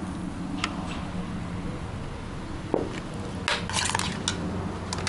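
Light kitchen handling of dishes and a spoon: a few separate clicks, then a short clattering scrape about three and a half seconds in, over a steady low hum.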